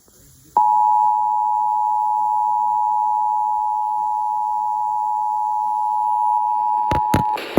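Emergency Alert System attention signal: the steady two-tone alert (853 and 960 Hz sounded together), starting about half a second in after a brief silence and holding for nearly seven seconds, announcing an emergency warning about to be read. Near the end come two sharp clicks and a loud crackle as the tone cuts off.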